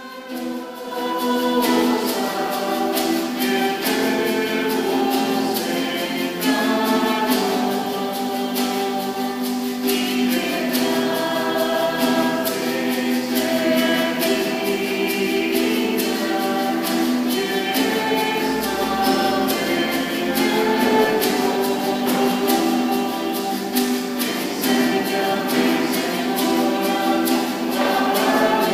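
A choir singing a hymn with instrumental accompaniment, starting about a second in and carrying on steadily.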